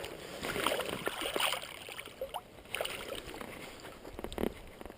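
Water sloshing and small splashes with a few short knocks, over the sound of the running river.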